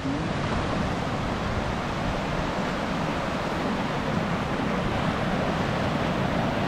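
Steady rushing of falling water, an even noise that does not let up.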